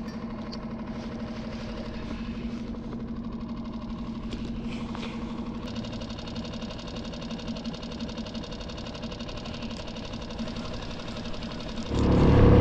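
Small skiff's outboard motor idling steadily, then throttled up sharply near the end as the boat gets under way.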